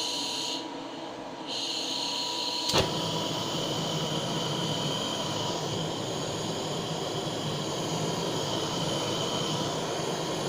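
Handheld butane blowtorch running with a steady hissing rush. A sharp click comes a little under three seconds in, after which the flame runs with a fuller, deeper steady rush.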